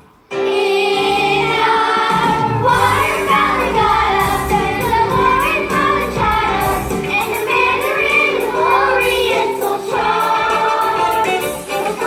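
A stage musical's cast singing together in chorus over an instrumental accompaniment, the song starting suddenly about a third of a second in after a brief hush.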